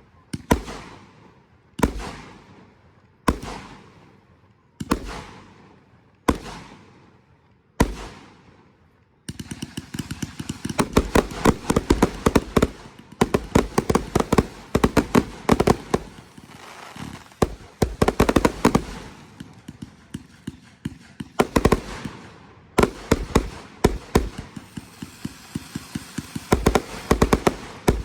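Fireworks going off: single loud bursts about every second and a half, each echoing away, then a rapid barrage of many quick bangs and crackles with a brief lull about two-thirds of the way through.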